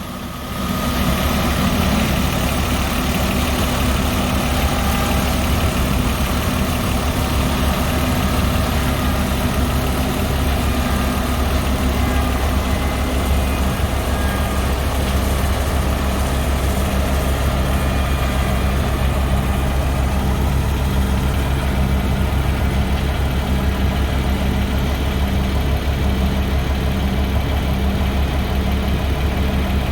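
An engine running steadily at a constant speed with a low, even drone, coming up in level about a second in and then holding steady.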